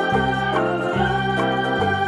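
Background instrumental music on a keyboard, with sustained notes over a bass line that changes note every second or so.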